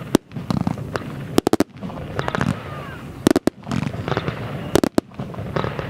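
Rubro Fireworks 'Delicious Thunder' going off in sharp bangs. There is one just after the start, a quick cluster of about three around a second and a half in, a pair a little past three seconds and another pair near five seconds, with crackle in between.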